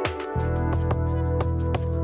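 Background music with a steady beat; a deep bass note comes in about a third of a second in.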